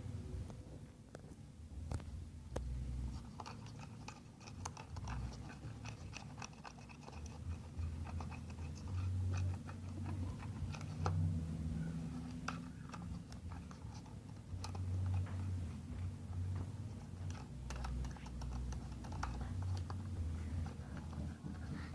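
Slime mixture being stirred and worked in a container: irregular small clicks, scrapes and squelches, with low thuds from handling.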